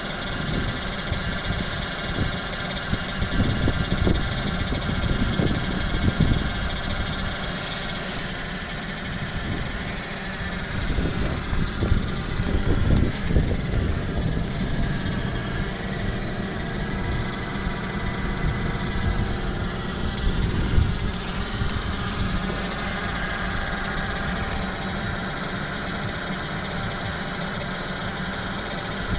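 Toyota RAV4's CVT (continuously variable transmission) humming steadily over the idling engine just after a cold start in a frost below −20 °C. The owner says the hum lasts only until the transmission warms up, after about 5–7 minutes.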